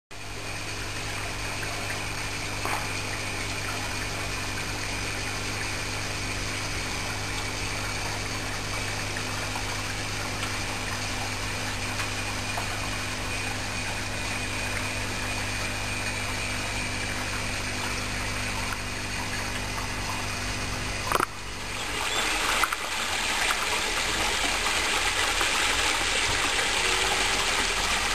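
Water gushing and splashing into the tubs of a koi pond's multi-tank filter, over a steady electric hum from the pond filtration pumps. About 21 seconds in the hum stops after a click, and a louder, brighter rush of water falling down a rock waterfall into the pond takes over.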